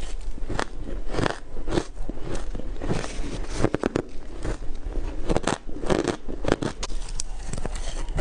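Ice being bitten and crunched between the teeth, close to the microphone: a run of sharp, irregular crunches, roughly two a second.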